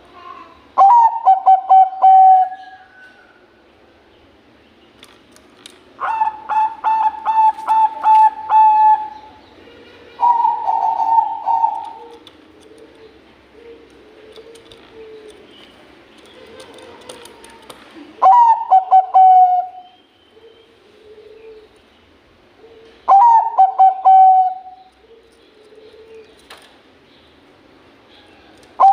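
Zebra dove (Bangkok perkutut) cooing: five loud song phrases, each a quick run of clipped notes that ends in a drawn-out coo. Between the phrases comes a fainter, lower-pitched cooing from another dove.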